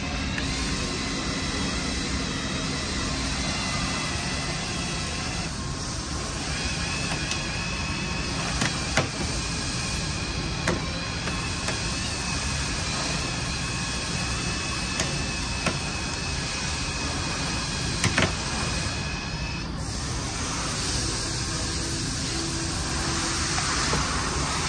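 Steady whine of a small power tool driving the Spider3 glass-removal winder, reeling in the cutting line to cut out the quarter glass. It pauses briefly about six seconds in, runs again, and stops near the end, with a few sharp clicks along the way.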